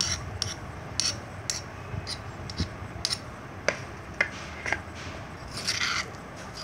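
Steel spoon scraping and clinking against a stone mortar as sticky pounded wood apple and jaggery is scooped out: a string of short, sharp clicks and scrapes.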